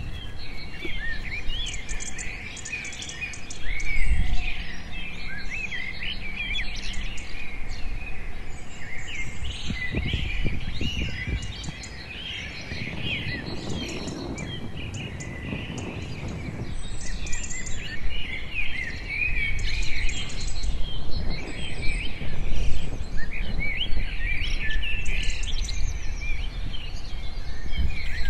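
Many small birds chirping and twittering without a break, over a low rumble that grows louder in the middle.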